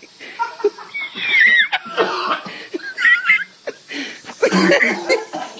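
Coughing and wheezing from a person choking on a mouthful of ground cinnamon. High-pitched wavering wheezes come about a second in and again about three seconds in, and a harsh coughing fit follows near the end.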